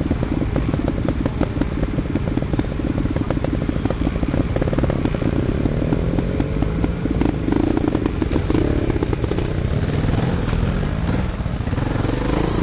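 Trials motorcycle engine running at low revs, the throttle opened and closed so the pitch rises and falls a few times, around the middle and again near the end.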